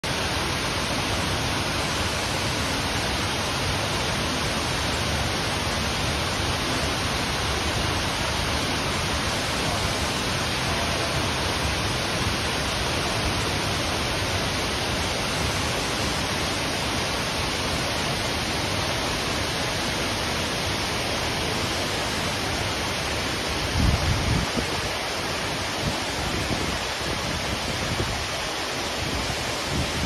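Steady rush of Shiraito Falls, many thin cascades pouring down a cliff, together with a shallow stream running over rocks. About four-fifths of the way through, low rumbling buffets hit the microphone for a few seconds.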